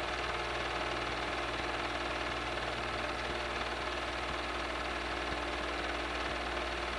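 Super 8 movie projector running with a steady mechanical whir and hum.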